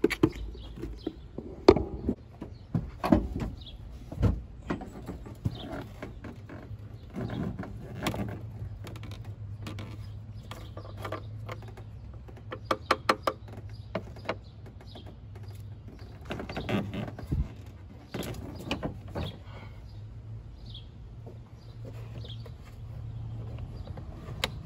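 Scattered clicks and knocks of plastic oil jugs and the engine's oil filler cap being handled, with a quick run of clicks about halfway through as the filler cap is twisted. A steady low hum runs underneath.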